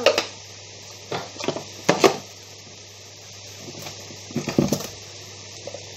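Glass spice jars and their lids being handled: a few short knocks and clinks, one at the start, a cluster around one to two seconds in and another near the end.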